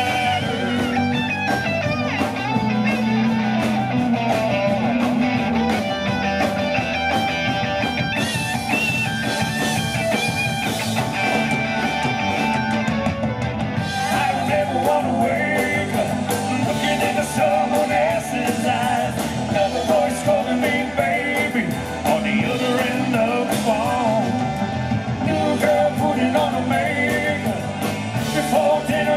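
Live country-rock band playing through a PA: drums, guitars, keyboard and fiddle, with vocals.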